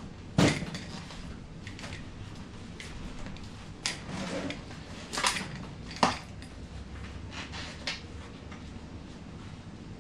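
Scattered metallic clinks and knocks of hand tools and parts being handled, about six sharp ones spread through, the loudest near the start and about two-thirds of the way in.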